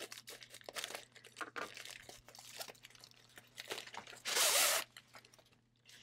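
Scissors snipping through a padded poly mailer, with plastic crinkling and crackling. About four seconds in, one loud rustling swish of plastic as the rolled canvas in its plastic sleeve comes out of the mailer.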